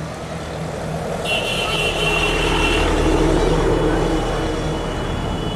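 A motor engine running, growing louder to a peak about three seconds in and then easing off, as of a vehicle passing, with a high steady tone over the middle.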